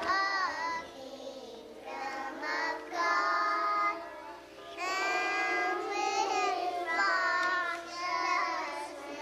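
A group of young children singing together in short held phrases with brief breaks between them.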